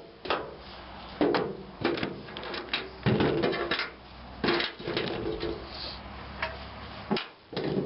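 Irregular clinks and knocks of small metal scrap parts (screws, bolts, washers) being handled and set down on a bench.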